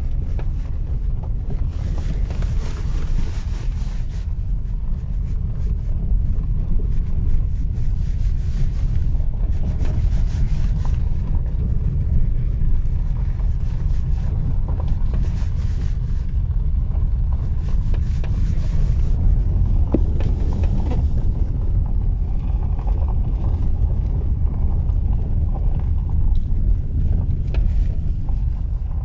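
Hyundai Santa Fe on the move: a steady low rumble of road and wind noise, recorded while the owner hunts for a knock.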